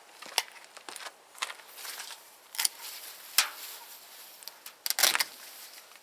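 Rustling, crackling and sharp knocks from a frost-bitten yacon plant and its plastic nursery pot being handled, irregular, with the loudest knocks about three and a half and five seconds in.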